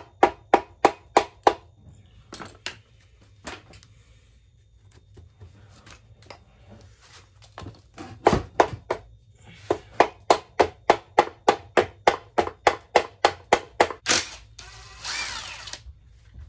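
Hammer blows on a metal punch against an aluminium engine crankcase, driving the halves of a Yamaha Moto 4 350 ATV engine apart. The ringing strikes come in quick runs of about three to four a second, one short run at the start and a long one in the second half. Near the end a cordless impact driver runs briefly.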